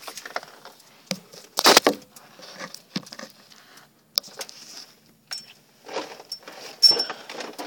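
Handling noise of gear at an ice-fishing hole: irregular clicks, knocks and rustles, with a louder scraping burst about two seconds in. Short thin high whines sound near the end.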